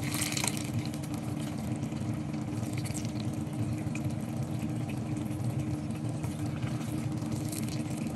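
Sauce bubbling and sizzling around tofu cubes in a nonstick frying pan while a wooden spatula stirs and turns them, with a brief louder hiss right at the start. A steady low hum runs underneath.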